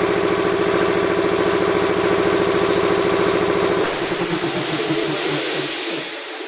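High-pressure air compressor running with a steady rhythmic pounding; about four seconds in the running stops, a hiss of air takes over, and the machine winds down as the hiss fades.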